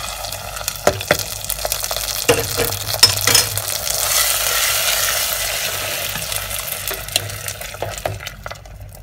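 Hot ghee with fried cashews and raisins sizzling as it is poured into a pot of milky rice paayasam and stirred in, with a few metal spoon clicks against the pan and pot. The sizzle starts at once, swells a few seconds in and fades near the end.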